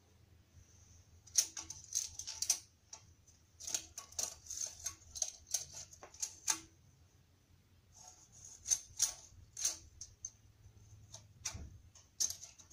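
Quick clusters of light metallic clinks and rattles in three spells from a metal band clamp being worked by hand around the turbocharger's housing. The clamp joins the center section to the exhaust housing of a Ford 6.4L Powerstroke turbo.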